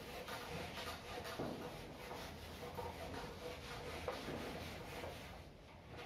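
Felt whiteboard duster rubbing across a whiteboard, wiping off marker writing in faint strokes.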